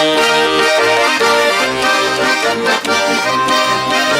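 Instrumental break between sung verses of a Cossack folk song: held chords over a bass line stepping about twice a second.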